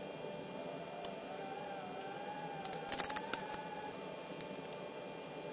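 A spoon clinking several times against a container about three seconds in, with one lighter click a second in, over a steady background hum and a faint wavering tone.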